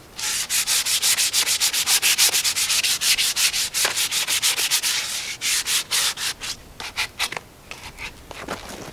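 Quick back-and-forth rubbing strokes of an abrasive on a wooden axe handle, about five a second, stripping off its varnish. The strokes become sparser and quieter in the last few seconds.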